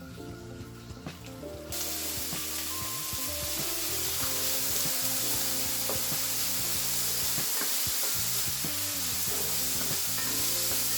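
Chicken pieces frying in oil in a hot skillet: a steady sizzle that starts abruptly about two seconds in, as the chicken is browning.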